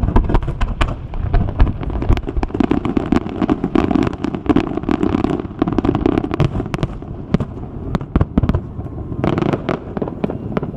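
Fireworks bursting in rapid succession: a dense run of sharp bangs and crackles over a low rumble, thinning briefly about eight seconds in before picking up again.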